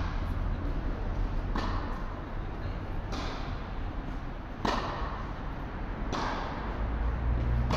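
Tennis balls struck by rackets in a rally on an indoor court: a sharp pop about every second and a half, each ringing briefly in the hall, over a steady low hum.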